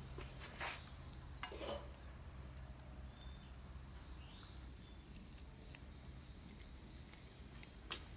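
Faint wet clicks from a hand working raw chicken mash in a steel bowl during the first two seconds, over a low steady hum. A few short high chirps come later.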